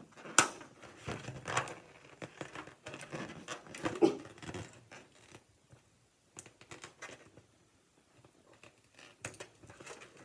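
Latex balloon being knotted by hand: irregular squeaks and rubs of stretched rubber under the fingers, with a sharp snap about half a second in. Busiest in the first half, then only a few scattered rubs.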